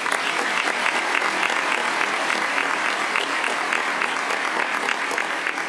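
Audience applauding: steady clapping from many hands that eases off near the end.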